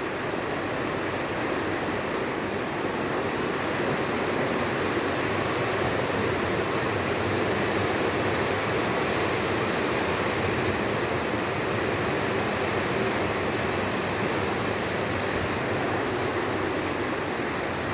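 Hitachi mini-split air conditioner running, a steady, even rush of air from its fan.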